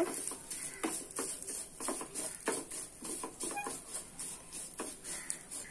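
Wooden spatula stirring vermicelli roasting in ghee in a metal pan, scraping and knocking against the pan in repeated short strokes about twice a second.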